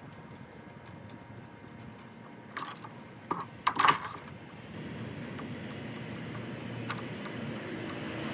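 A few sharp clicks and knocks in quick succession, the loudest about four seconds in, like small hard parts or tools being handled, over a steady background noise that grows louder toward the end.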